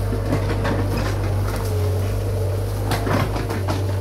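Komatsu PC75 mini excavator's diesel engine running steadily, with scattered sharp cracks of brush and branches breaking as it clears the land, several of them close together about three seconds in.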